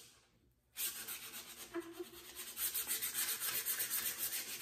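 Sandpaper rubbed back and forth along a torch-charred wooden hammer handle in quick, even strokes, knocking the burnt wood and fuzz off. The strokes stop for a moment just after the start, then run on.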